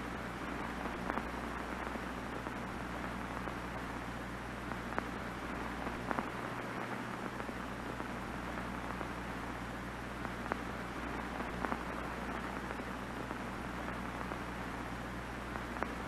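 Steady static hiss of an off-air television, with a low hum underneath and a few faint clicks scattered through.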